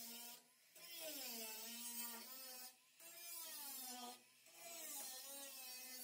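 Electric angle grinder with a cut-off wheel slicing through the sheet-steel floor of a 1975 Ford F100 pickup bed: a whine whose pitch sags as the wheel bites into the metal, dropping away briefly three times.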